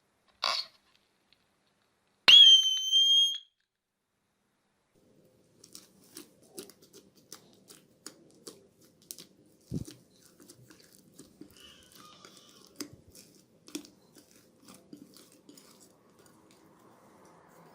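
Slime being pressed and worked by hand, making a run of faint, irregular small crackles and clicks. About two seconds in, a loud high steady tone lasts about a second, preceded by a short burst.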